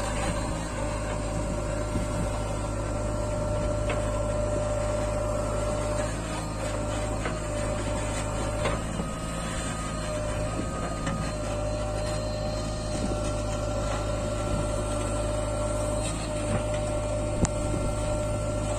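JCB 3DX backhoe loader's diesel engine running steadily under load as the backhoe digs soil and lifts a full bucket, with a steady whine over the engine note and occasional knocks from the bucket and arm.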